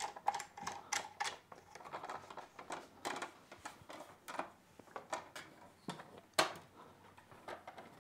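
Irregular clicks, taps and knocks of a GVM 800D LED panel light being handled on its stand, its metal frame, barn-door flaps and mount knocking as it is set up.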